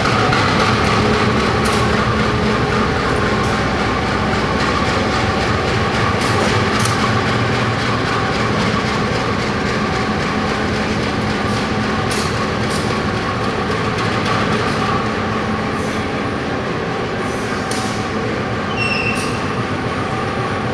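Diesel locomotive engine running steadily as the locomotive rolls slowly at low speed, its hum fading a little over time. A few metallic clicks and a short squeak can be heard near the end.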